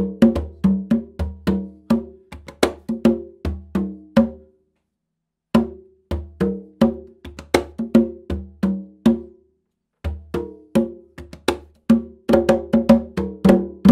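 A pair of congas played with bare hands in a quick rhythmic pattern, two drums of different pitch answering each other, about four to five strokes a second. The playing stops for about a second a third of the way in and briefly again later, then picks back up and ends on a final stroke.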